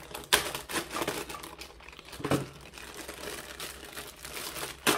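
Clear plastic packaging bag crinkling as it is handled and opened, with three sharp louder crackles: one near the start, one about halfway and one near the end.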